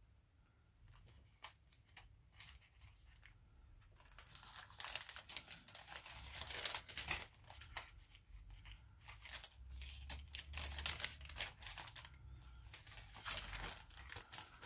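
Paper and packaging being handled and opened, crinkling and rustling: a few light clicks at first, then continuous dense crinkling from about four seconds in.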